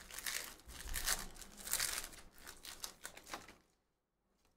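Wrapper of a Bowman baseball card pack being torn open and crinkled by hand, in irregular rustling bursts that stop about three and a half seconds in.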